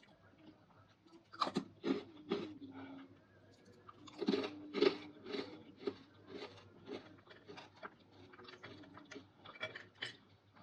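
Close-miked crunching of dried fruit or vegetable pieces: a few crisp bites, the loudest about four seconds in, then steady chewing crunches about twice a second.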